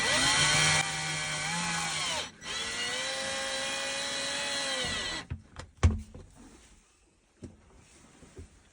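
Handheld power tool motor running in two spells, a few seconds each with a short stop between, the pitch dipping as it takes up load and then holding steady. A few light clicks and knocks follow once it stops.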